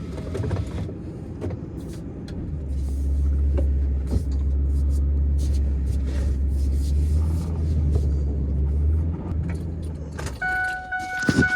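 A vehicle engine running under load, its low rumble swelling about two and a half seconds in and easing off near nine seconds.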